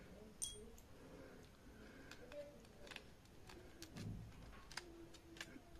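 Near silence with a few faint, scattered clicks of small metal parts from a refrigerator starting relay being handled between the fingers.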